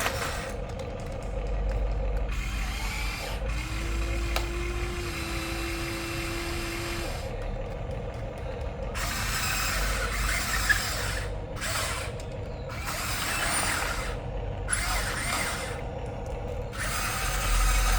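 Huina remote-control excavator's small electric motors whirring, stopping and starting again several times as different functions are worked, with a steady hum for a few seconds early in the stretch.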